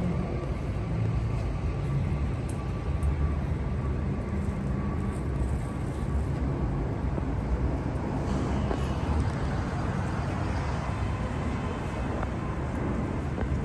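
Steady low rumble of city street traffic, even and unbroken.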